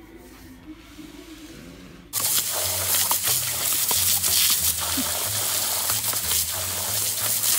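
A garden hose jet of water hissing and splashing as a dog bites at the stream. It starts suddenly about two seconds in, after a quiet stretch, and runs loud and steady, with a low rumble coming and going under the hiss.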